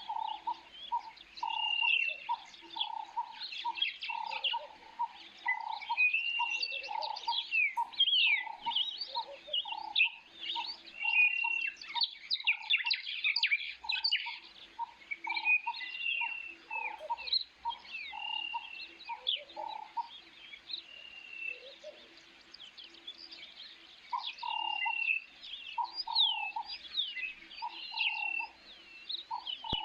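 Birds chirping and calling: many quick chirps and short arched whistles, with a lower note repeated about twice a second that stops for a few seconds past the middle and then returns.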